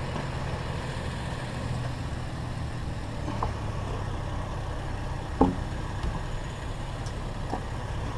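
Vehicle engine idling steadily, with a single sharp knock about five and a half seconds in and a couple of faint clicks.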